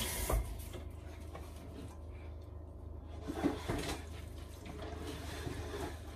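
Faint kitchen room sound over a steady low hum, with a short knock soon after the start and a few faint, brief sounds a few seconds in.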